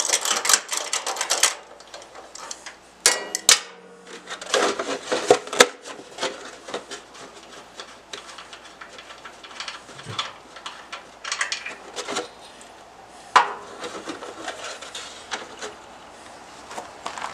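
Hand work with a ratcheting wrench and a cut-down plastic milk jug under a riding mower's engine as the oil drain plug is taken out: a quick run of clicks at the start, then scattered knocks, rattles and rubbing.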